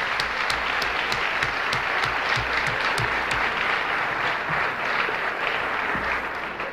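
An audience applauding, with a nearer set of sharp claps at about three a second over the first few seconds. The applause dies away near the end.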